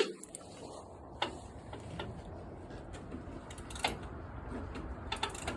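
A sharp click right at the start, then a few fainter scattered clicks and light knocks over low, steady background noise.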